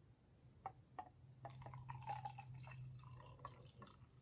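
Water poured from a drinking glass into a speckled enamel mug: a faint trickle and drips starting about a second and a half in, after a couple of light clicks.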